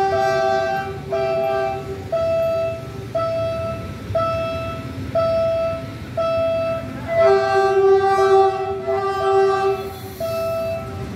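Philippine National Railways GE U15C diesel locomotive's horn sounding two long blasts as the train approaches, the second and louder one about seven seconds in. Under it, a steady beep repeats about once a second.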